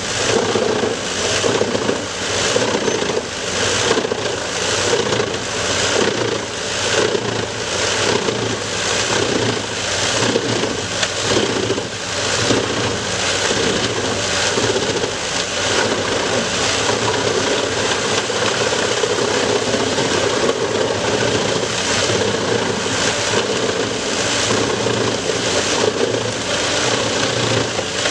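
Wood chipper running steadily, its engine and chipping noise pulsing about once a second, most clearly in the first half.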